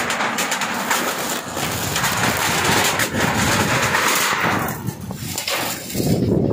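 Typhoon storm noise: wind and rain rushing loudly and steadily, buffeting the phone's microphone. About six seconds in it turns to a lower rumble.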